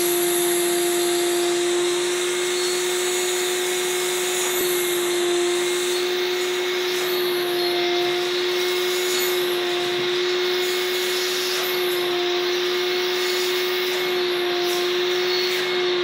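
Vacuum motor of a curtain-cleaning machine running steadily, drawing air through a hose and hand-held wand: a constant hum over the rush of suction.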